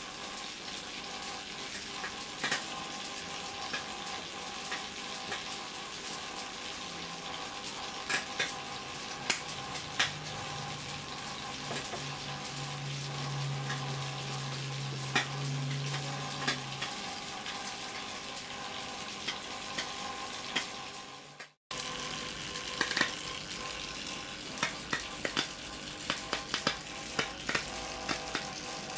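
High-voltage arcs from a microwave oven transformer sizzling and crackling inside a plasma TV panel's glass, over a steady electrical hum, with sharp snaps every few seconds.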